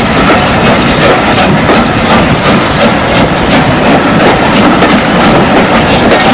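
Steam locomotive hauling coaches slowly past, its open cylinder drain cocks loudly hissing steam, over a steady run of repeated beats from the engine and wheels.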